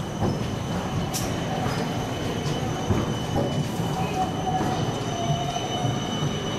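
Siemens Combino tram passing close by on street track, its running rumble carrying a steady high-pitched whine, with a sharp knock near the middle.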